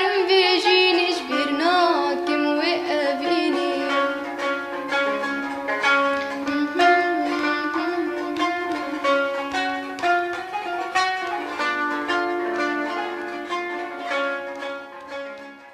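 Instrumental close of a Kurdish song: plucked and bowed strings play the melody, fading out near the end.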